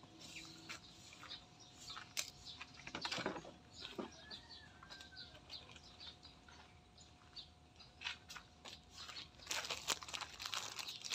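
Faint, scattered clicks and crackles of hands handling material, thickening near the end into the crinkling of a plastic bag. One short bird chirp about four seconds in.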